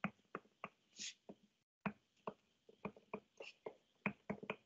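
Faint, irregular clicks and taps of a pen stylus on a tablet or touchscreen as words are handwritten, many in quick succession with short pauses between.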